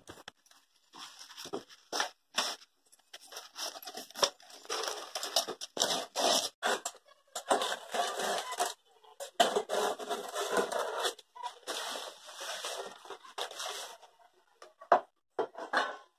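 Fresh banana leaves rustling and tearing in irregular bursts with short pauses, as they are trimmed into round plates around a steel plate.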